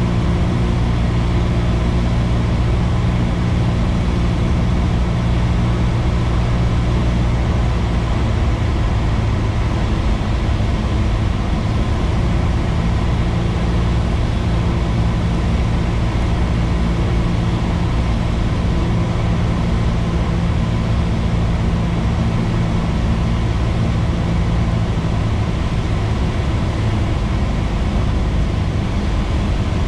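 Cessna 172's piston engine and propeller running steadily, heard inside the cabin on final approach to landing. The low drone shifts slightly in pitch about eight seconds in.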